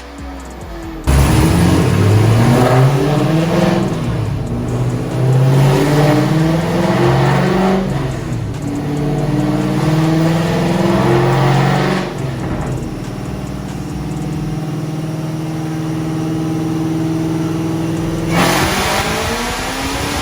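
A V8 car engine starts loud about a second in and accelerates hard, its revs climbing in three runs of about four seconds each, dropping back between them. It then holds steady revs for about six seconds, and the sound changes near the end.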